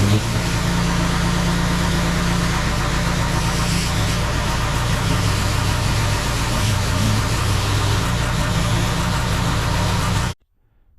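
Gas-engine pressure washer running steadily while its high-pressure water spray hisses during a rinse-down; cuts off suddenly near the end.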